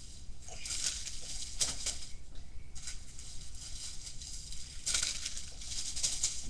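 Plastic-wrapped fireworks and bags rustling and crinkling as they are handled and packed into a cardboard box, in several bouts.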